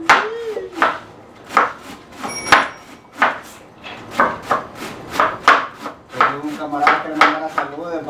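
Knife chopping on a wooden cutting board in a steady rhythm of about two to three strokes a second.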